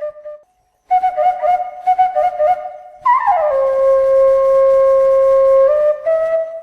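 Flute music: a run of quick repeated notes, a brief break, then a note that slides down and is held for about two seconds before the melody steps up again.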